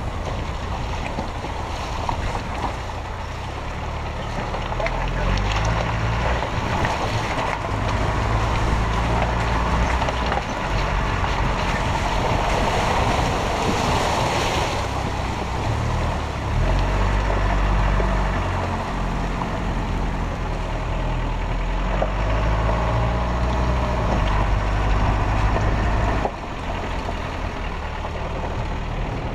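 Land Rover ambulance's diesel engine pulling over rough ground, heard from inside the cab, its revs rising and falling again and again. Splashing water rushes in about halfway through as it wades a shallow stream, and near the end the engine note suddenly drops quieter.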